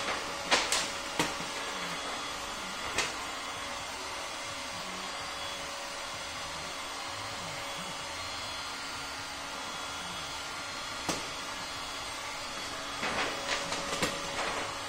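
Steady blowing hiss of an electric heat gun running, with a faint steady hum. Sharp snaps and crackles of vinyl wrap film being pulled and stretched over a car bumper come several times in the first few seconds, once about eleven seconds in, and in a quick cluster near the end.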